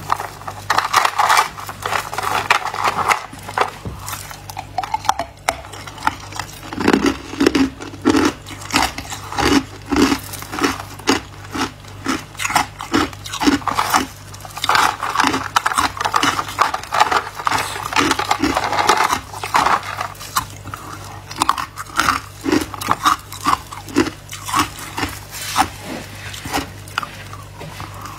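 Chunks of white ice bitten and chewed, a dense irregular crackle of crunches, over a steady low hum.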